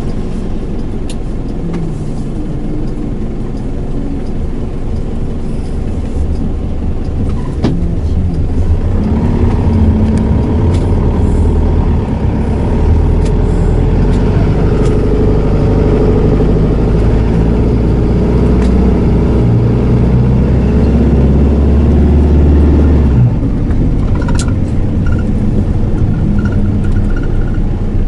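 Inside the cabin of a Hino Liesse II (SDG-XZB50M) minibus on the move: its diesel engine, driving through a five-speed automatic, pulls harder and louder from about nine seconds in. The engine note drops off abruptly a little after twenty-three seconds, and a few faint high beeps follow near the end.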